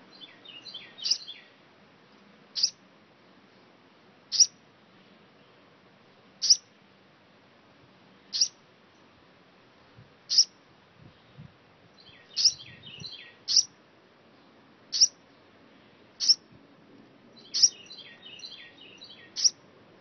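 Baby bird chirping: about a dozen short, sharp, high chirps, one every one to two seconds, with three brief runs of quicker, softer twittering notes between them.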